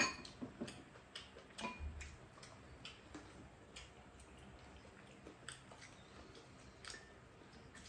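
Faint, irregular clicks and taps of wooden spoons and chopsticks against ceramic bowls and a metal pan as two people eat.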